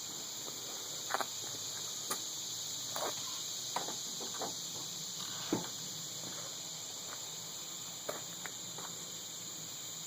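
Steady high-pitched insect chirring, like crickets, with a handful of brief, irregular scratches and taps scattered through it.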